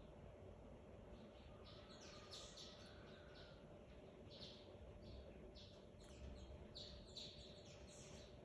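Faint wild birds chirping: many short, high notes, some sliding downward, coming in quick runs from about two seconds in.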